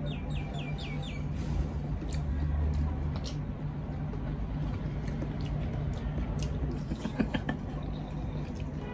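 Close-up eating sounds of gelatin and watermelon: chewing and mouth sounds, with scattered light clicks of forks on plates, over a steady low hum. Near the start comes a quick run of four short high squeaks.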